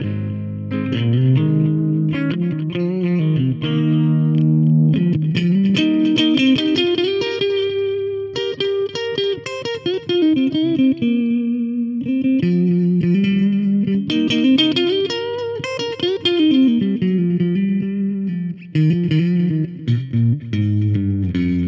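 Electric guitar played through a Roland Micro Cube practice amp: picked melodic single-note lines that climb and fall, in phrases with short breaks between them.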